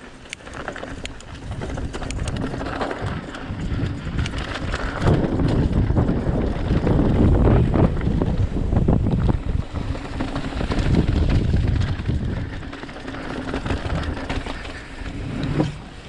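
Mountain bike riding down a dirt trail: wind rushing over the microphone mixed with tyre noise and rattling clicks from the bike, loudest in the middle, with a brief dip near the end.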